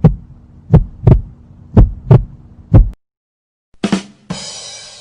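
Heartbeat sound effect: deep lub-dub double thumps about once a second, stopping about three seconds in. After a short pause comes a drum sting, two quick drum hits and a cymbal crash that rings and fades, the "ba-dum-tss" rimshot.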